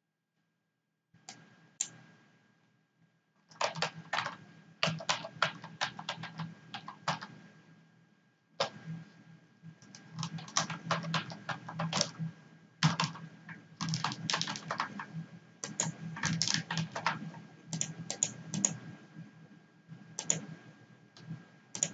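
Computer keyboard typing: runs of fast key clicks starting about a second in, with a brief pause partway through.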